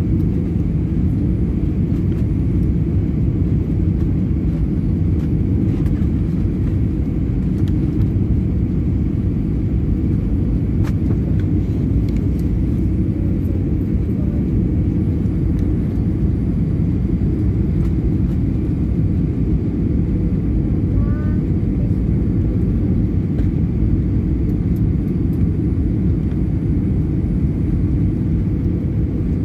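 Steady low rumble inside an airliner's cabin on final approach: jet engines and airflow heard through the fuselage, with a faint steady whine above it.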